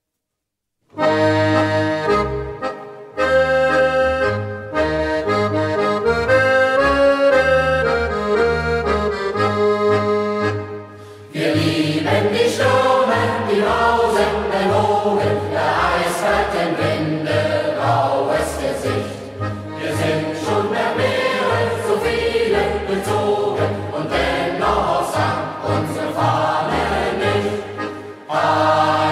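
A second of silence, then a short instrumental introduction of held chords, and from about 11 seconds in a youth choir singing a German marching song in unison over the accompaniment.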